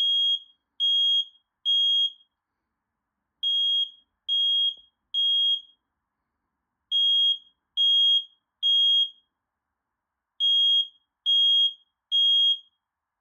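Household smoke alarm sounding, set off by aerosol test smoke: high-pitched beeps in the temporal-three evacuation pattern, three beeps then a pause, repeating four times.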